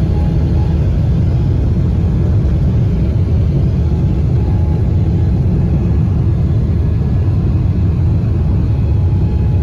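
Steady, loud rumble of an airliner's jet engines and wheels, heard inside the cabin during the takeoff roll.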